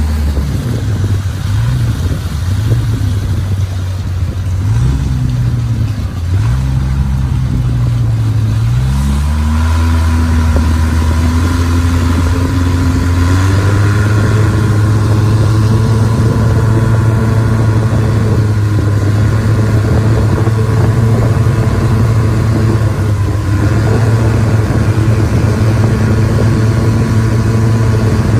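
Long-tail boat engine running under way, its pitch rising and falling several times, then climbing about nine seconds in and again a few seconds later before holding steady at cruising speed.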